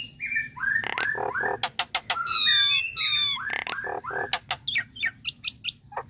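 Common myna singing: a run of short whistled notes that drop in pitch, mixed with harsher squawks, then a quick series of sharp clicks and short notes near the end.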